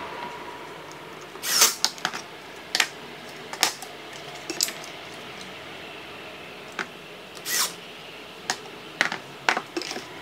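Wooden table legs fitted with metal folding brackets being handled and set down on a wooden table frame: about a dozen irregular clacks and knocks, the loudest about a second and a half in and again past the middle.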